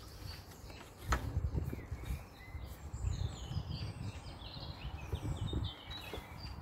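Small birds chirping and singing over a low, uneven rumble, with a single sharp knock about a second in.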